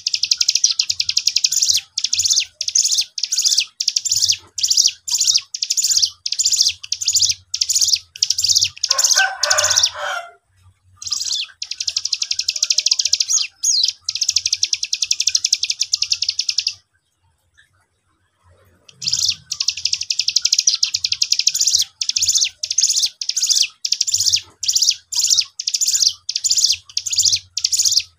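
A cigun, a small brown songbird, singing in a fast, high-pitched run of short buzzy notes repeated about twice a second. In the middle the notes run together into a long unbroken trill of about five seconds. A pause of about two seconds follows before the repeated notes start again.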